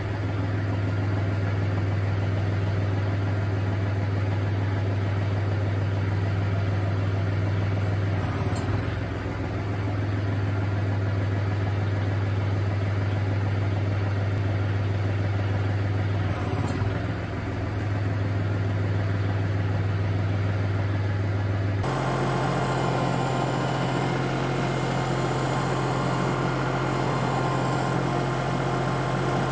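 Kubota L3560 tractor's diesel engine running steadily, with two brief dips in the note about a third and two-thirds of the way through. Near the end the sound changes suddenly to a slightly higher, equally steady engine hum.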